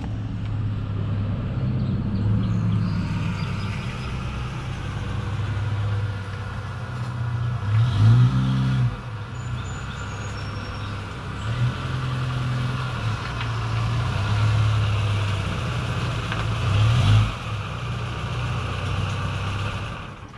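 USPS Grumman LLV mail truck's engine running as it drives up the street and pulls up close, with two brief revs, one about eight seconds in and one near the end; the muffler is loud.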